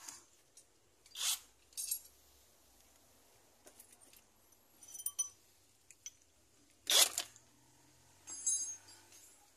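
Scattered scrapes and light metallic clinks of tools and parts being handled, the loudest a short scrape about seven seconds in, followed by a brief metallic jingle.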